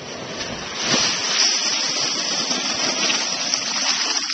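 Thick silt-laden slurry gushing from the end of a pump's discharge pipe into a metal bucket held at the outlet: a steady rushing noise that gets louder about a second in.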